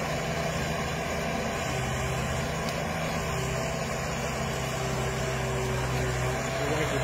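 Jinggong JG90Z wheeled excavator's diesel engine running steadily as it works the hydraulic boom and sugarcane grab, closing on and lifting a bundle of cane.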